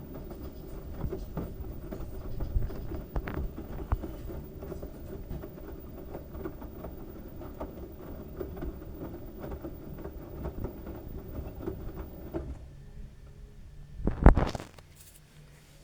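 LG washing machine drum turning a load of wet towels: a steady rumble with many small knocks that stops abruptly about twelve seconds in. A loud thump follows about two seconds later.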